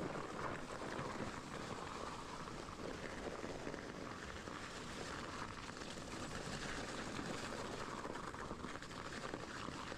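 Steady rushing noise of a mountain bike on the move: tyres rolling over rough ground and air rushing past the camera, with no breaks or separate knocks.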